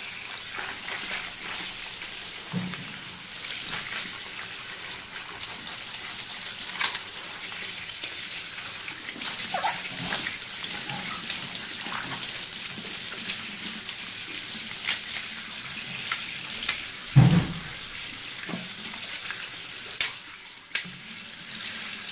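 Tap water running steadily and splashing onto a computer keyboard being rinsed in a sink, with a single louder knock late on.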